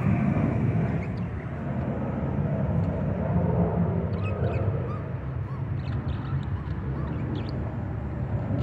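Low rumble of a passing aircraft, easing off slowly, with faint chirps of budgerigars.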